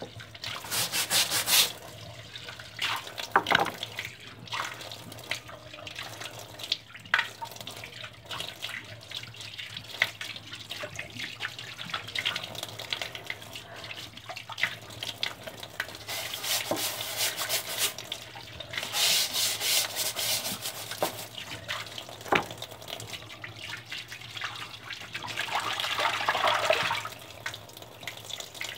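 Laundry being scrubbed by hand: wet fabric rubbed in bursts of quick strokes, with some water sloshing and small knocks.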